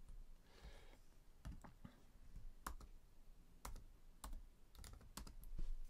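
Faint keystrokes on a computer keyboard as a word is typed: about six separate key clicks, spaced unevenly from half a second to a second apart.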